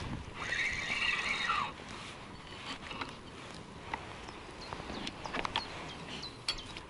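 A feeder rod being cast: a hiss of line running off the spinning reel's spool, lasting about a second from half a second in and dropping in pitch as it ends. A few sharp clicks from the reel follow later.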